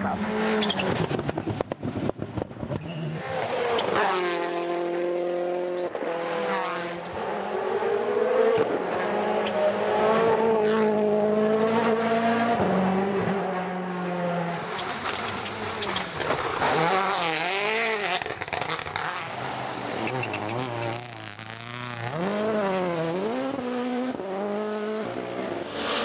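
Turbocharged rally car engines at full throttle, revving up and dropping back over and over through fast gear changes. A burst of sharp cracks comes about a second in.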